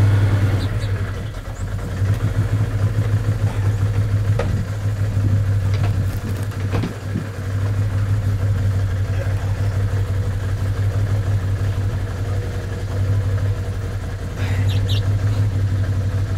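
ATV engine idling steadily, left running to warm up in the cold. A few light clicks sound about midway.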